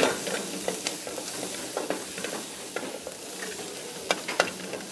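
Chicken pieces dry-frying in a steel wok over a gas flame, sizzling steadily while a metal ladle stirs them, clinking and scraping against the wok several times.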